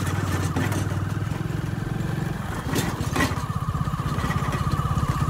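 Motorcycle engine running steadily while riding over a rough, broken road, with a couple of knocks about three seconds in.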